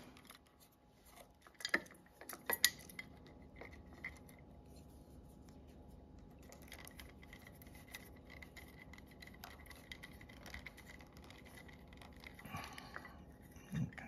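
Faint handling noises of wires, plastic wire nuts and a pull chain switch being worked inside a metal ceiling fan switch housing. A few sharp clicks come about two seconds in, and faint small ticks follow.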